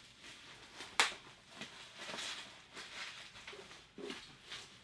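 Soft plastic protectors and packing rustling and crinkling as boxed vinyl figures are handled, with one sharp crackle about a second in.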